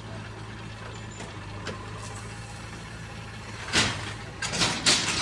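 JCB 3DX backhoe loader's diesel engine running steadily as the machine works, with several sharp knocks and clanks from the swinging arm and bucket over the last second and a half.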